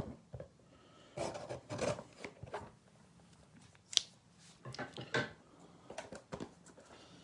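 Hands opening a cardboard trading-card box and handling its packaging: irregular rubbing and scraping, with scattered clicks and one sharp click about four seconds in.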